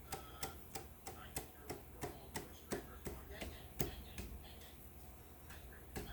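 Light, evenly spaced taps, about three a second, on a piston as it is tapped down into a Jeep WJ engine's cylinder bore. The tapping stops about four seconds in, with one more tap near the end.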